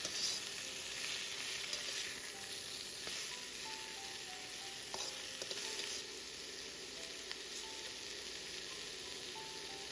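Cabbage leaves sizzling steadily in hot oil in a wok over high heat as they stir-fry, with a few faint ticks from the stirring.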